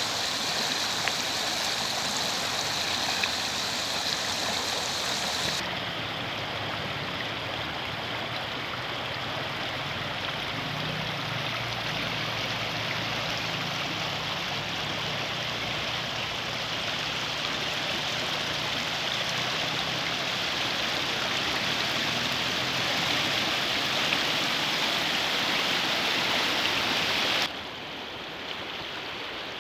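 Swollen brown floodwater rushing and churning along a riverbank, a steady noisy rush. It drops suddenly to a quieter, duller rush near the end.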